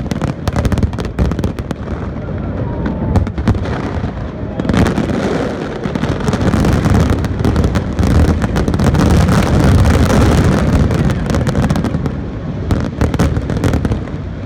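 Aerial fireworks display going off: a rapid, continuous run of bangs and crackles, at its loudest and densest a little past the middle.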